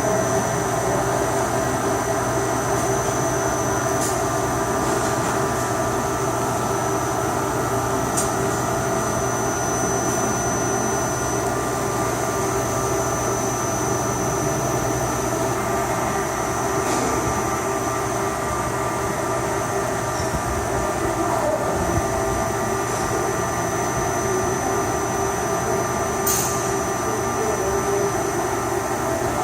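CNC machine (HS-1000) running through three-axis movements: a steady mechanical hum from its axis drives, with a high steady whine and a few faint ticks.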